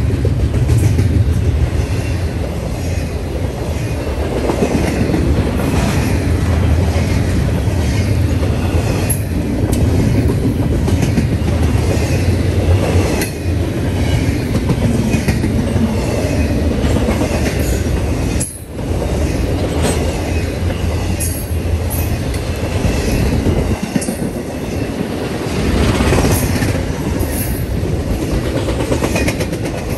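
Norfolk Southern double-stack intermodal freight train rolling past: a steady rumble of steel wheels on the rails, with repeated clicks as the cars' wheel trucks cross rail joints.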